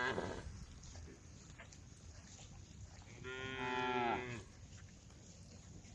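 Cow mooing: the tail of one moo at the very start, then a single full moo of just over a second about three seconds in, its pitch dropping at the end.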